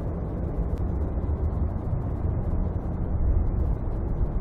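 Airbus A330-200's twin jet engines at takeoff thrust during the takeoff roll: a steady low rumble.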